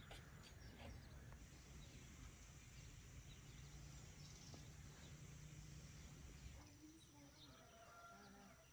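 Near silence: quiet rural garden ambience with a low rumble that falls away about two-thirds of the way through, faint scattered bird chirps, and a few short calls near the end.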